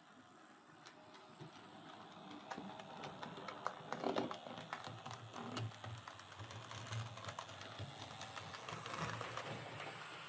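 OO gauge Oxford Rail Adams Radial model tank engine running along the track under its DC motor: a low motor hum with many quick clicks from the wheels on the rails. It grows louder over the first few seconds as it comes closer.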